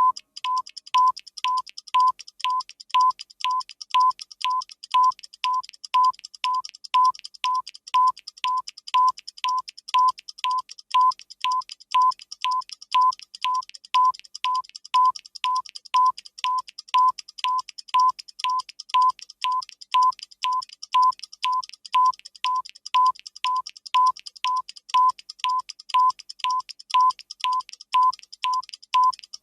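Ticking-clock sound effect for a countdown timer: even, mechanical-sounding ticks at about two a second, each a sharp click with a short high ringing tone, unchanging in pace and loudness.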